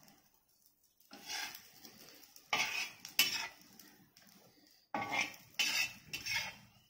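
Metal flat spatula scraping and tapping on a dosa tawa while folding an egg kalakki, a run of about six short scrapes that starts about a second in.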